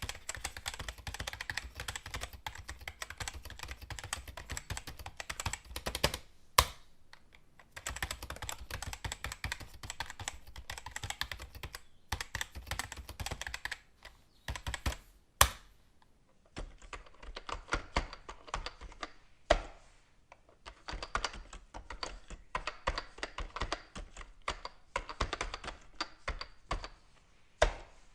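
Fast typing on a computer keyboard: dense runs of quick key clicks broken by short pauses, with an occasional single louder key strike after a run. Past the middle the clicks change character, as from a second keyboard recording.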